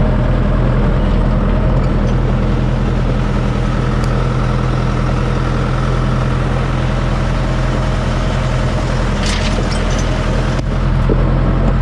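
Farm tractor's diesel engine running at a steady, even pace while driving with a spring-tine cultivator hitched behind.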